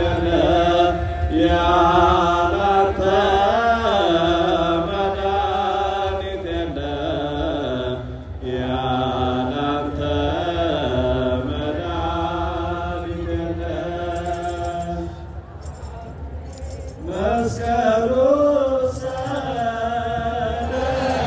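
A large choir of voices chanting an Ethiopian Orthodox hymn together, the melody moving slowly up and down. The singing thins and drops for a moment about fifteen seconds in, then swells back.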